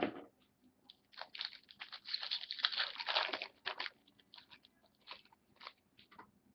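Foil trading-card pack wrapper being torn and crinkled, a dense crackling about a second in, followed by scattered light ticks of cards being handled.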